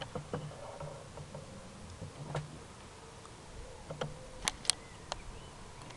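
Handling noise from a handheld camera: scattered short clicks and knocks as it is moved, the loudest two in quick succession about four and a half seconds in, over a faint low hum.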